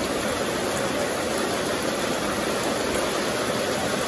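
Steady rushing background noise, even throughout, with no distinct splashes or knocks.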